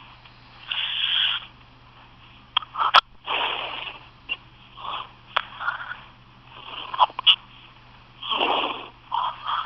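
A person hiccupping repeatedly: short, sharp hics with noisy, breathy breaths between them, the loudest hic about three seconds in. Recorded through a phone's microphone.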